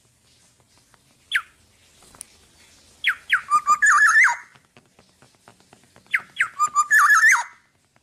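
Black-naped oriole singing: a single falling whistled note, then two loud fluty phrases about three seconds apart, each opening with quick falling whistles and running into a fast string of warbled notes.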